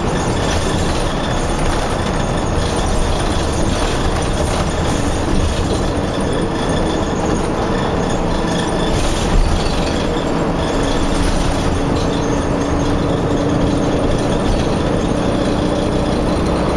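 Steady road traffic noise with a low rumble and a faint engine hum that comes and goes.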